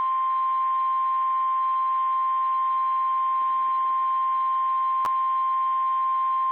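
NOAA Weather Radio 1050 Hz warning alarm tone: a single loud, steady beep-like tone received over the weather radio. A brief click cuts through it about five seconds in. The tone signals that a warning message is about to be read.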